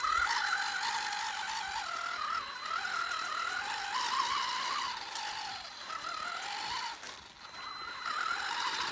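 WLtoys 12428 RC crawler's brushed electric motor and gearbox whining as it drives over sand. The pitch rises and falls with the throttle, easing off briefly about seven seconds in.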